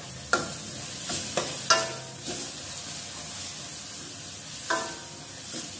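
Steel ladle stirring and scraping thick masala in a stainless-steel kadai, over a steady sizzle of the paste frying in oil as it is cooked down until the oil separates. There are several metallic clinks and scrapes with a short ring, the sharpest about a second and a half in.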